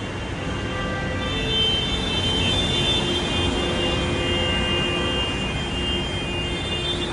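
Steady city road traffic running, a low rumble with a high steady whine of engines over it.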